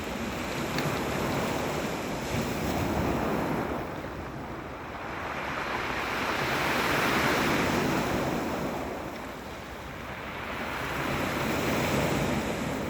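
Sea waves surging and washing onto the shore, the rush swelling and falling back in slow cycles, about three swells.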